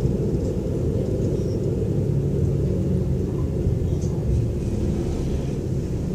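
Diesel O-Train railcar running along the line, heard from inside the passenger cabin as a steady low rumble of engine and wheels on the track.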